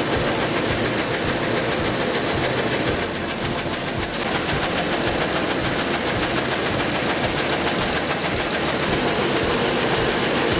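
Multi-blade frame saw running, a steady mechanical clatter with a rapid, even rhythm.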